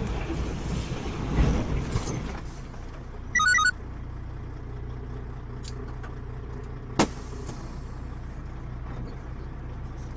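Road and engine rumble from inside a truck braking hard, dying down about two and a half seconds in as it slows, then a steady low engine idle. A short electronic beeping alert sounds about three and a half seconds in, and there is a single sharp click near seven seconds.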